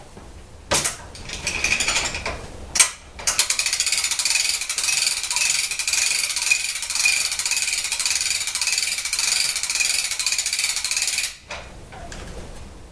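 The height-adjusting mechanism of a homemade sawmill being worked to raise or lower the saw. Two sharp clicks come first, then about eight seconds of steady, fast mechanical clicking that stops suddenly.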